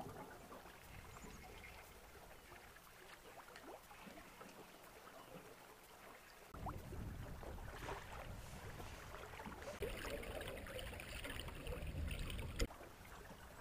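Quiet river water moving around a drift boat. About halfway through it turns louder, with low rumble and water sloshing as a landing net goes into the river beside the hull, and it cuts off sharply near the end.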